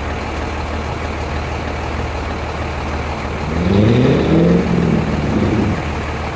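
A car engine running steadily at low revs, then revving up about three and a half seconds in, holding for a couple of seconds and settling back: a stuck car trying to find its way through.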